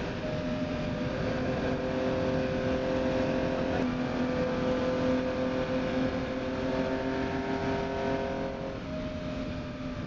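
Ferrari 250 GTO's V12 engine heard from inside the car, running hard at speed on the straight. Its note holds fairly steady, shifting slightly in pitch about four seconds in and again near nine seconds in.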